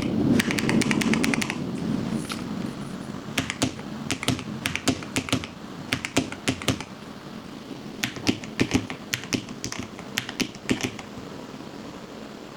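Typing on a Lofree low-profile mechanical keyboard: runs of quick key clicks in several bursts with short pauses between. A low rain-and-thunder rumble underneath is strongest at the start and fades.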